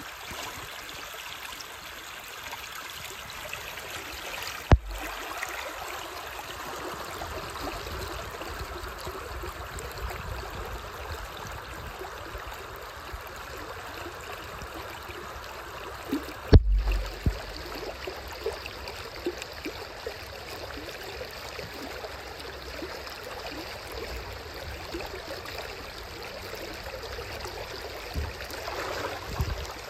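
Shallow river water running and babbling over a submerged rock weir and stones, a steady rush. Twice a sharp thump breaks in, each followed by a brief low rumble.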